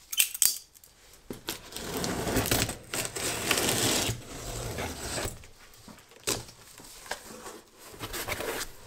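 A utility knife slitting the packing tape on a cardboard box, then the box flaps being pulled open: a few seconds of scraping and rustling of cardboard and tape, with several sharp clicks and knocks.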